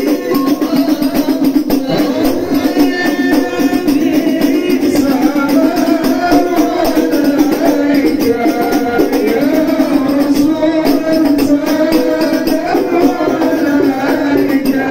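A group of men singing a sholawat together, their voices held on long notes, over a steady shaking and jingling hand-percussion beat.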